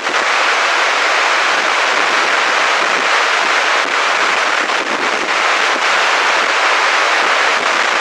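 Waterfall cascading down a steep rocky channel: a loud, steady rush of white water.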